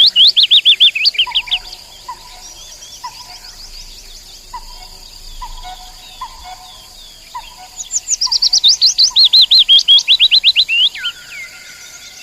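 Nightingale singing: a loud phrase of rapid, repeated downward-slurred notes at the start, and another from about eight seconds in that ends in a long steady whistle. Between the phrases a softer, lower note repeats about once a second over a faint steady high hiss.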